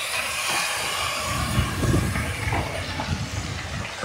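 Mustard paste and spices sizzling in hot mustard oil in a steel karai, with a steady hiss. Underneath, a spatula scrapes and knocks against the pan as the paste is stirred in.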